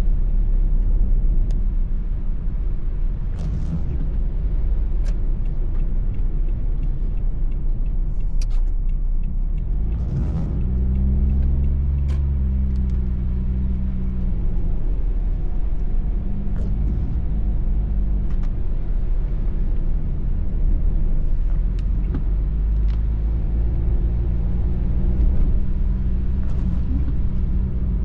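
Car driving on a wet road, heard from inside the cabin: steady low engine and tyre rumble, with the engine note growing stronger about ten seconds in, and scattered light ticks.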